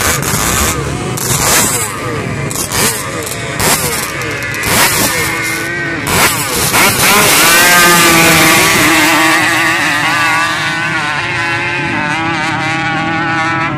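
Dune drag quads with paddle tyres revving in short throttle blips at the start line, then launching about seven seconds in and running flat out up the sand hill, the engine note bending and then holding high as they pull away.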